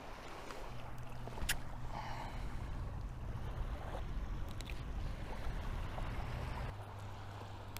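Distant motorboat engine droning steadily, its pitch dropping slightly near the end, with a few small clicks from handling the fish and jig.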